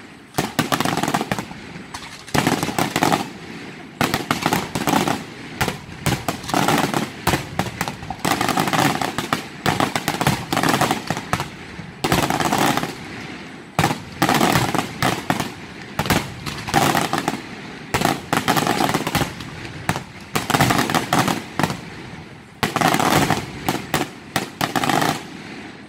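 Aerial fireworks shells bursting in a rapid, continuous barrage: many loud bangs and crackles in quick succession, coming in dense clusters about once a second.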